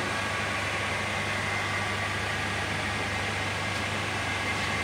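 BMP Voghera Model 26 all-geared heavy-duty lathe running at its maximum spindle speed: a steady, even hum with a faint high-pitched tone. The seller takes it as free of gearbox and spindle noise or vibration, the sign of a machine in excellent condition.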